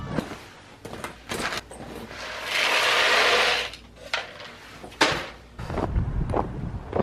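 Feed pellets poured from a plastic scoop into a plastic bucket: a rushing rattle lasting just over a second in the middle, the loudest sound here, with a few scattered short knocks before and after.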